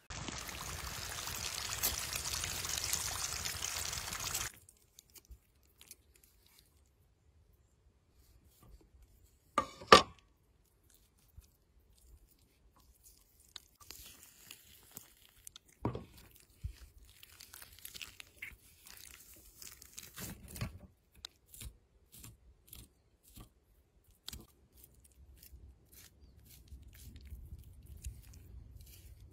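Raw chicken leg being deboned with a knife on a wooden cutting board: wet tearing of flesh and skin, with scattered small clicks and crunches. A loud steady hiss opens and cuts off abruptly after about four seconds, and a single sharp knock comes about ten seconds in.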